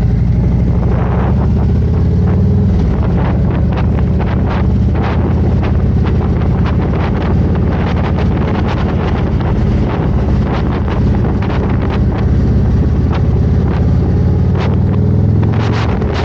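Harley-Davidson V-twin motorcycle engine running steadily at road speed, with wind buffeting the microphone.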